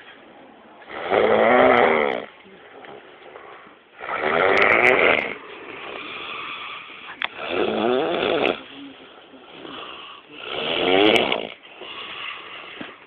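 A person snoring very loud and hard: four long, rasping snores about three seconds apart, with quieter breathing between them.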